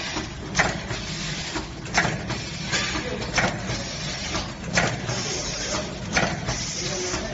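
Automatic four-side sealing packing machine for pregnancy test kits running: a steady mechanical hum with a sharp clack about every second and a half as it cycles, and lighter clicks in between.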